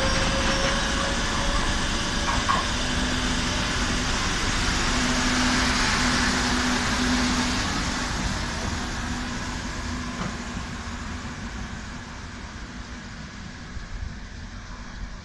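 Madrid Metro Line 5 train running through the station and pulling away. Rolling wheel and motor noise, with a steady low hum for a few seconds, fades over the second half.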